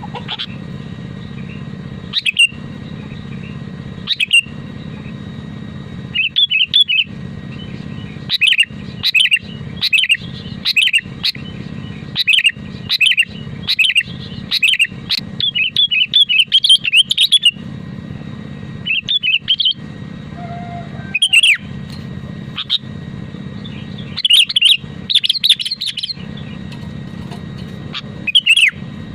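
Sooty-headed bulbul (kutilang) calling: short chirping notes in quick bursts, with pauses between phrases, over a steady low background hum.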